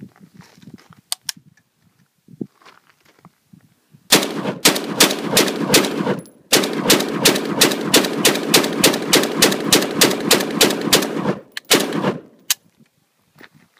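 Semi-automatic firearm being bump-fired: a couple of single shots, then two long strings of rapid shots at about four a second with a short break between them, ending in a few last scattered shots.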